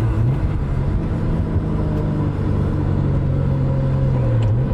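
Turbocharged 2.5-litre inline-six car engine running steadily while driving. Its note rises briefly just after the start and again near the end.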